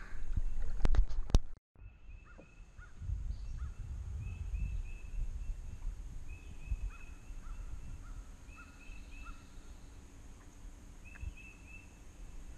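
A bird calling again and again in quick runs of three or four short, high notes, over low wind rumble on the microphone. At the start there is a brief loud stretch of wind noise and a few knocks, cut off suddenly about a second and a half in.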